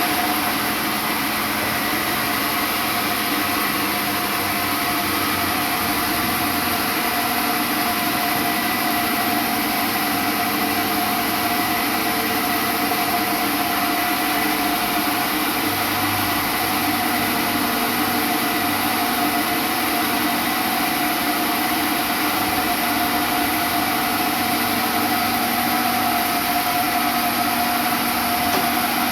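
Sawmill machinery running steadily: a constant mechanical noise with a steady whine, unchanging throughout.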